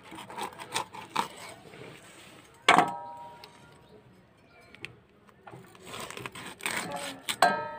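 A raw chicken is cut up with a curved hand blade over a steel bowl: soft scattered handling and cutting clicks. About three seconds in there is one sharp metallic clink with a short ring, and more clinks follow near the end.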